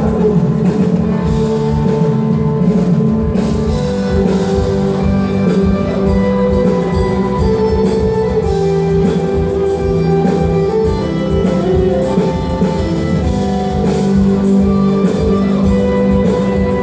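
Rock band playing live, electric guitar and drum kit in an instrumental passage without singing.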